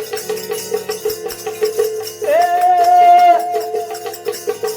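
Devotional bhajan music: manjira hand cymbals keeping a fast, steady beat over a steady drone. About halfway through, a singer holds one long note for about a second.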